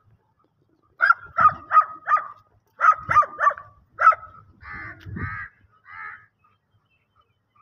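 Dog barking: a quick run of about eight sharp barks, then three rougher, longer barks, after which it falls quiet.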